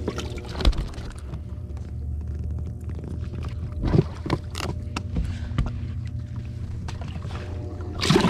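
A bass being culled in a bass boat's livewell: sharp knocks and handling noises of the fish and cull clip against the livewell, with a loud thump near the end as the livewell lid is shut. A steady low hum runs underneath.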